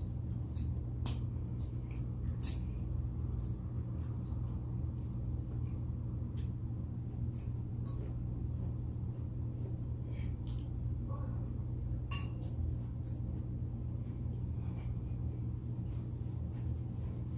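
Eating at a table: scattered small clicks and clinks of cutlery and dishes at irregular intervals, over a steady low hum.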